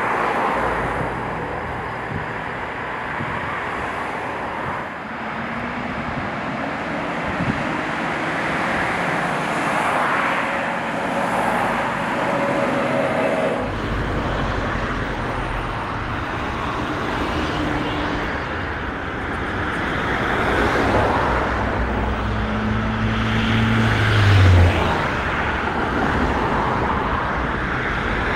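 Steady road traffic: car engines and tyres on a busy city road, with individual cars swelling as they pass. The sound changes character about a third of the way through, with more low rumble afterwards.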